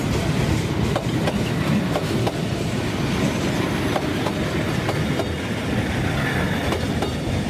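Freight train of open-top wagons rolling past at close range: a steady rumble of steel wheels on rail with sharp clickety-clack clicks as the wheels cross the rail joints.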